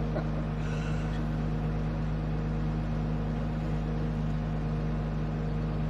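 Vehicle engine running steadily, an even low drone that does not change.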